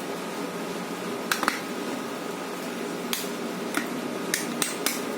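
A series of short, sharp clicks and taps of small hard parts being handled, as an Evercoss U50C phone board is picked up and readied for testing, over a steady room hum.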